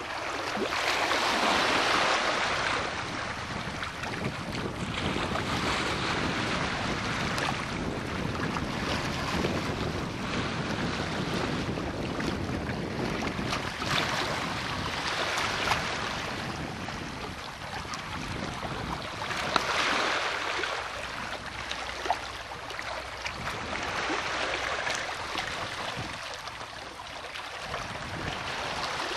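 Wind gusting on the microphone in swells every few seconds, over small waves lapping at the shore, with a few light knocks.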